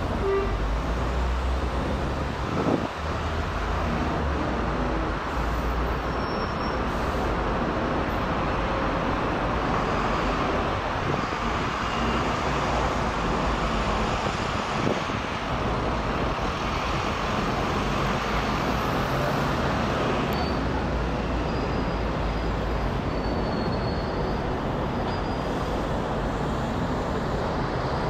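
Steady roar of a Boeing 787-9's Rolls-Royce Trent 1000 jet engines as the airliner climbs overhead, a deep rumble with a broad rushing noise above it.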